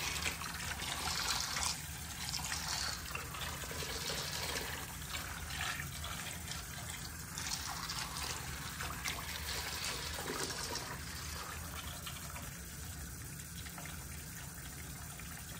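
A thin stream of water pouring into a stainless steel bowl of dried black beans, filling it to soak them: a steady trickling splash that eases slightly after about twelve seconds.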